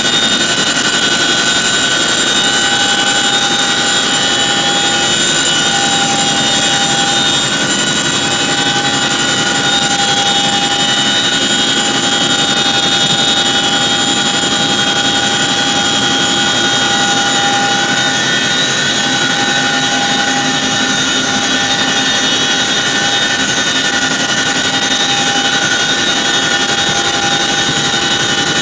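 Boeing CH-47 Chinook tandem-rotor helicopter heard from inside its cabin with the rear ramp open: a loud, steady roar of its twin turboshaft engines and rotor drive, with several high whining tones held constant over it.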